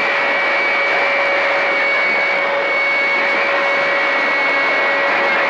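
CB radio receiver hiss on channel 28 during skip conditions, with several faint steady whistling tones over it, typical of heterodynes from distant carriers.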